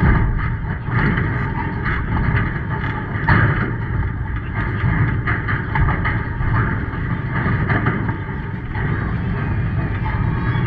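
Steady low rumble with indistinct voices in the background.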